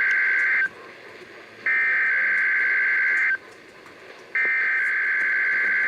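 NOAA Weather Radio EAS/SAME digital header: three loud bursts of two-tone warbling data about a second apart, the first cut short. These headers open a Required Weekly Test broadcast.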